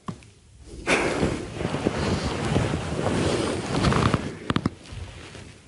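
Duvet and sheets rustling loudly as people shift under the covers, starting about a second in and easing off near the end, followed by a few sharp clicks.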